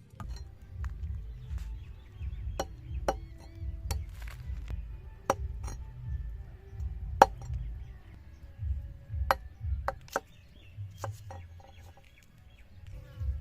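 Irregular sharp knocks and clinks of kitchen work, such as chopping or utensils striking, over a low rumble; the loudest knock comes about seven seconds in.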